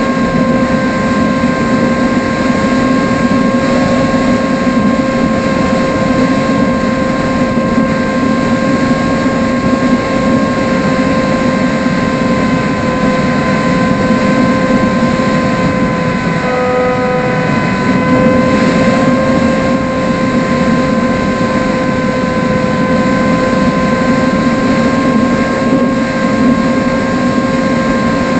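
AtomRC Dolphin FPV plane's electric motor and propeller running at a steady whine, with airflow rushing over the onboard camera's microphone. About halfway through, the pitch dips briefly and then comes back up.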